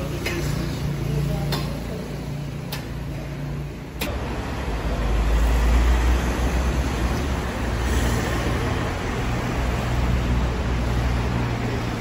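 A steady low hum with a few sharp clicks, then, after a sudden change about four seconds in, road traffic: cars driving past with a low engine rumble.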